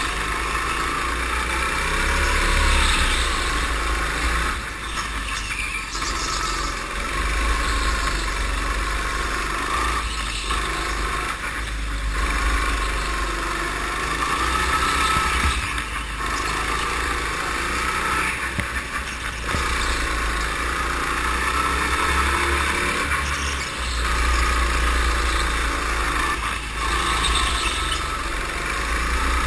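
Go-kart engine running under the driver's throttle through a lap, its pitch rising on the straights and dipping into the corners, heard onboard from the kart in an enclosed concrete hall.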